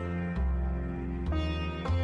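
Instrumental background music: a plucked-string melody over sustained low bass notes, with new notes struck a few times.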